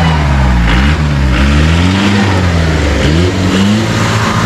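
Modified off-road jeep's engine revving up and down in repeated surges as it crawls over rough, bumpy ground.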